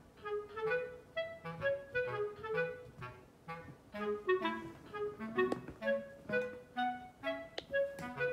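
Background music: a light tune of short, evenly paced notes with a clarinet-like woodwind melody over a bass line.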